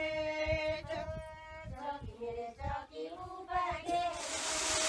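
A woman singing with long, held, wavering notes. About four seconds in, a loud steady rushing hiss comes in under the voice.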